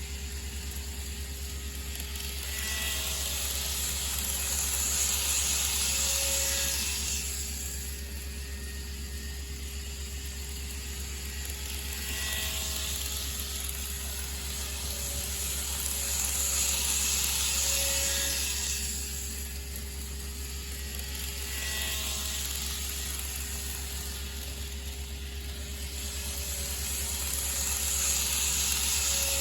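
Model trains of the 221 series and 521 series running on layout track over a steady hum. The rattle of their wheels and motors swells and fades as each train passes, several times over.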